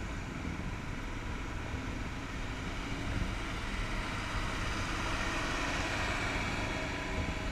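Steady engine, road and wind noise heard from on board a motorcycle riding slowly through city traffic.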